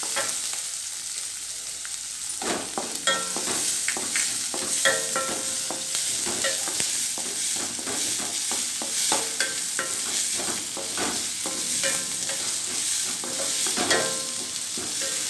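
Chopped onions sizzling in hot oil in a stainless-steel pan, stirred from about two seconds in with a wooden spatula that scrapes and knocks against the metal.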